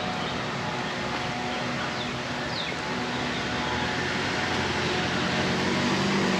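Steady hum of distant road traffic, with a few faint bird chirps.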